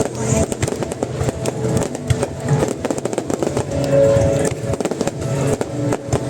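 Fireworks going off in a rapid, irregular string of bangs and crackles over loud background music.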